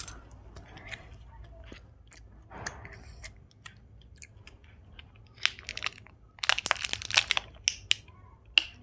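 Close-miked chewing and wet mouth sounds of someone eating Indian sweets, with scattered clicks and a dense run of sharp, crisp crunching clicks about five and a half to seven seconds in.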